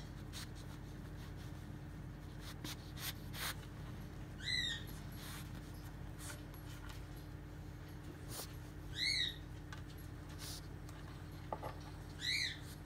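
Plush squeaky toy squeaking three times, each a short squeak that rises and falls in pitch, as a raccoon chews and squeezes it. Faint scattered clicks come between the squeaks.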